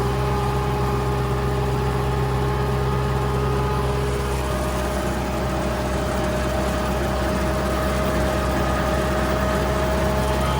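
Tractor engine running steadily at high revs in third gear, driving a PTO mower through grass. A steady whine joins about four seconds in.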